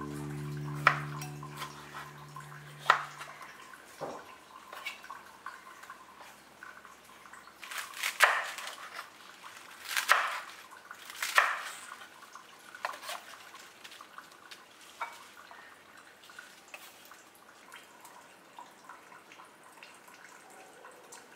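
Chef's knife cutting on a bamboo cutting board: sharp single taps a second or two apart through tomatoes, then a few louder crunching cuts through napa cabbage leaves about eight to twelve seconds in. Near the end come softer clicks and small wet sounds as raw prawns are handled in a bowl of water.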